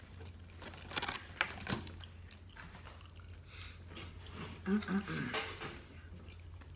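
Eating sounds at a table: a few sharp clicks of utensils against a dish about a second in, then a brief murmur and a slurp of black-bean noodles near the end, over a low steady hum.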